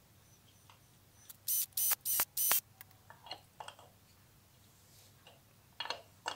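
A steel wrench tightening the water pump pulley bolts: four quick, sharp metallic clicks about a second and a half in, then a few fainter clicks and two more near the end.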